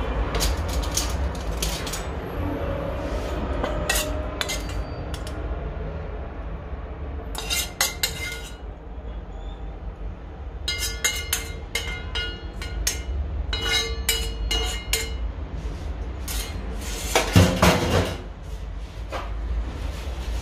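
Cutlery clinking and scraping against a plate in scattered clusters, with a louder clatter near the end, over a steady low rumble.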